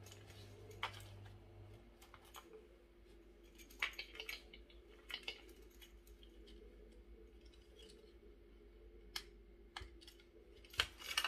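Self-defence keychain handled in the hands: its metal rings and hard parts click and clink now and then, faint and irregular, with a small cluster about four seconds in and another near the end.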